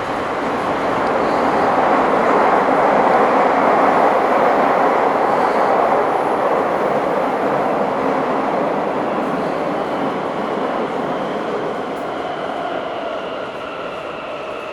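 Bucharest Metro M1 train heard from inside the car while it runs through the tunnel: a steady rumble of wheels and car noise that swells in the first few seconds and then eases off. In the last few seconds a whine comes in and falls gently in pitch.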